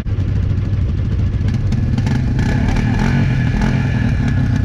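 A motor vehicle engine running close by, its pitch rising and dipping slightly as it is revved a little.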